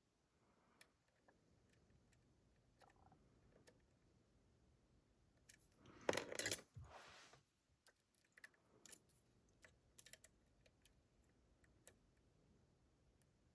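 Faint scattered clicks and scrapes of a pick and tension wrench working the pins of a Dorma DC500 lock, with a brief louder metallic rattle about six seconds in.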